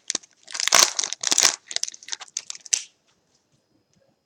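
Trading-card pack wrapper being crinkled and torn open, a run of irregular crackles that stops about three seconds in.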